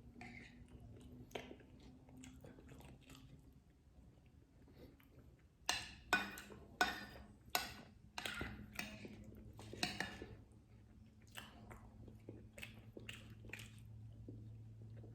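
Close-miked chewing and mouth sounds of a person eating, with a run of louder, sharp wet smacks about six to ten seconds in.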